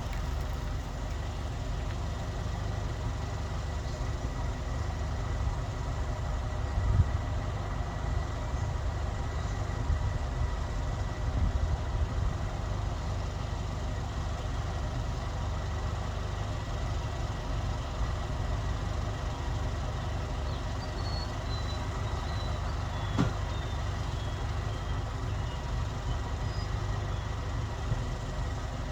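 1914 Ford Model T four-cylinder side-valve engine running steadily with a low rumble, freshly rebuilt differential and driveshaft in place. A couple of short knocks come about a quarter of the way in and again near the end.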